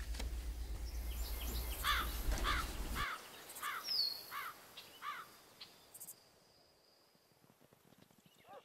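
A small creature chirping: about seven short chirps, roughly two a second, over a low steady hum that cuts off about three seconds in, with one brief falling whistle among them.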